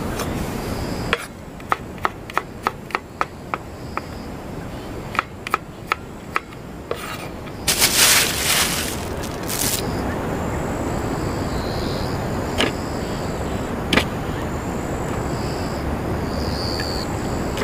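Kitchen knife chopping onion on a wooden cutting board: quick runs of sharp taps a second or so in and again around six seconds. Then a thin plastic bag rustles loudly for about two seconds as it is opened, followed by a few single knocks.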